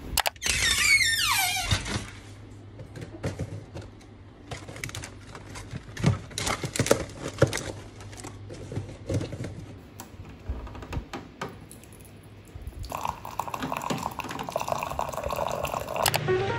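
A falling sweep at the start, then scattered clicks and knocks of a green-tea box and tea-bag packets being handled. For the last three seconds or so, water runs steadily from a water dispenser into a glass mug.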